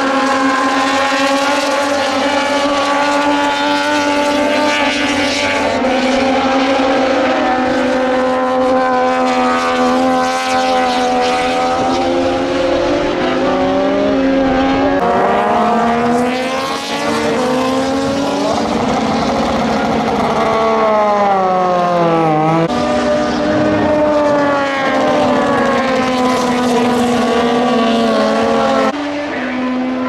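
Several Moto2 racing motorcycles' Triumph 765 cc three-cylinder engines running at high revs, overlapping and rising and falling in pitch with throttle and gear changes. About halfway through, a bike stopped on the track is revved and launched for a practice start.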